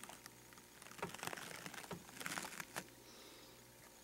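Faint handling noise: light rustling with a few small clicks and taps, mostly between about one and three seconds in, over a low steady hum.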